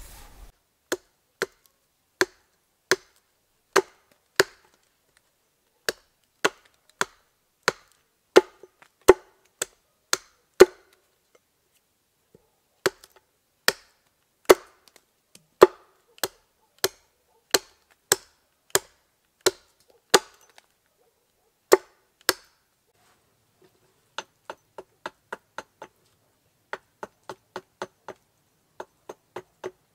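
Sharp wooden knocks of an axe being struck into a log to rough out a spoon blank, one every half second to a second with short pauses. Just before the end the knocks turn into lighter, quicker taps, about two or three a second.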